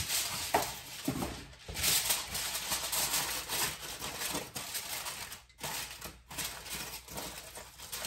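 Aluminium foil crinkling as it is pressed tightly over a pan, in irregular spurts with a couple of brief pauses past the halfway mark.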